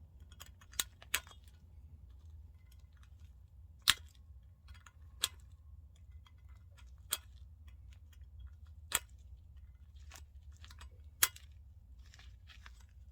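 Scattered sharp clicks and taps, about seven, spaced irregularly, from small metal tools and parts being handled, over a low steady hum.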